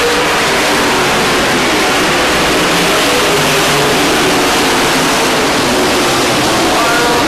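A field of dirt-track race trucks running at racing speed, their engines blending into one loud, steady din with pitches that shift as trucks pass and lift through the turns.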